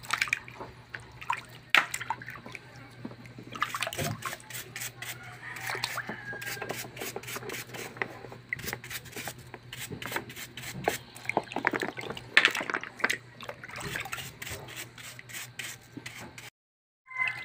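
Clams being scrubbed with a plastic brush in a basin of water: scraping brush strokes and sharp clicks of shells knocking, with splashing and dripping water. The sound drops out briefly near the end.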